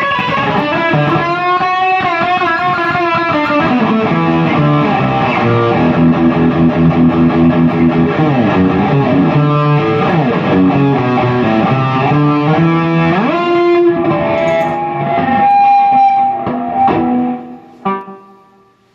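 Electric guitar through a Peavey 6505+ combo amp, with a Zoom G1X Four multi-effects pedal in its effects loop, playing a distorted heavy riff. It has fast repeated picked notes and sliding pitches, and stops about a second before the end.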